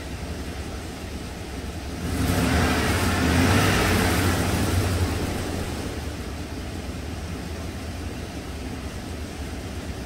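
Vortec 5.7 V8 of a 1997 GM truck running at idle, with a louder rushing swell that starts suddenly about two seconds in and fades back over the next few seconds. The engine still has a miss, which the scan tool puts on cylinder 8.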